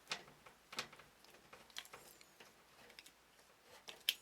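A screw being set and driven with a screwdriver into the graphics card's mounting bracket on a PC case: a handful of small, irregular metal clicks, the sharpest near the end.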